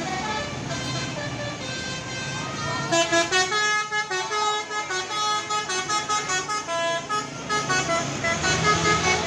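Bus telolet horn (Basuri multi-tone horn) playing a fast melody of short notes that jump from pitch to pitch. It is softer at first and becomes loud and choppy from about three seconds in.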